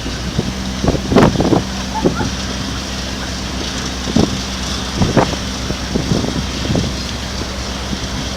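An engine running with a steady low hum, while gusts of wind buffet the microphone every second or so.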